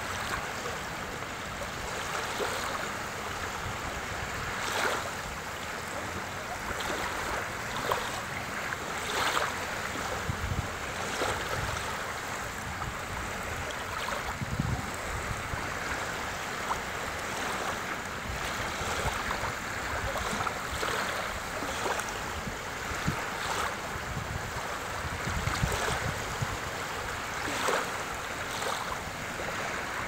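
Small sea waves lapping and splashing in the shallows: a steady wash of water with frequent small splashes as the ripples break.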